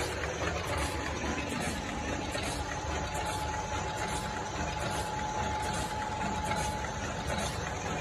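IMA C21 enveloped tea bag packing machine running at production speed: a steady, fast mechanical clatter of its indexing and crimping mechanisms, with a faint steady whine through the middle.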